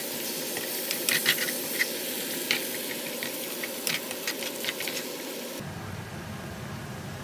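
Food sizzling in a frying pan, a steady hiss with sharp crackling spatter pops. About five and a half seconds in, it cuts off suddenly to a steady, duller rushing noise.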